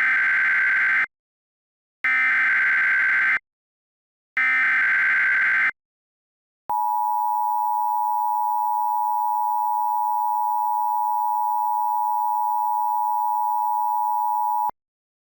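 Mock Emergency Alert System tones: three harsh bursts of SAME digital header data, each about a second long, with short silences between them. Then comes the steady two-tone EAS attention signal for about eight seconds, which cuts off abruptly.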